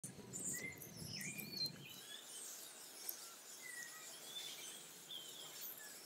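Small birds chirping outdoors: scattered short, high whistles and squeaks over a faint background hiss, with a low rumble in the first two seconds.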